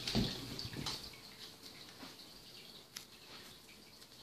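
Water trickling and dripping steadily, with heavy bumps and rustling from handling in the first second and a single sharp click about three seconds in.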